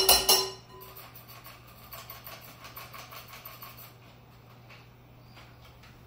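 Metal beaters of an electric hand mixer knocked against a glass mixing bowl: a few ringing clinks in the first half second. Then faint clattering and handling, with a low steady hum underneath.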